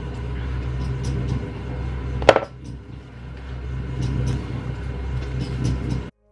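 Damp bath bomb mix of bicarbonate of soda and citric acid being scooped by gloved hands and packed into a round metal mould: crumbly, gritty scraping and crackling over a steady low rumble, with one sharp metallic knock about two seconds in. The sound cuts off abruptly near the end.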